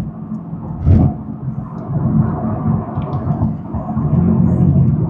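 Engine and road noise inside a moving car's cabin: a steady low rumble, with one sharp thump about a second in.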